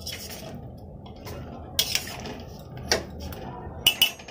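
A metal spoon clinking and scraping against steel cookware, with a few sharp clinks spread out and the loudest near the end.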